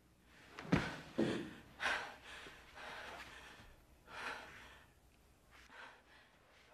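A woman gasping and breathing hard: several sharp breaths in the first two seconds, another about four seconds in, then quieter breathing.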